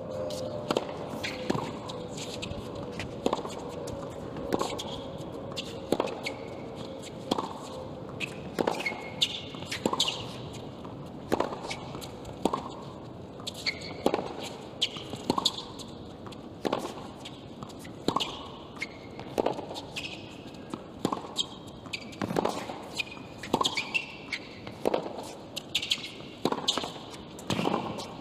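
Tennis rally on a hard court: crisp racket-on-ball hits and ball bounces come about once a second at a steady pace, with shoes squeaking on the court now and then.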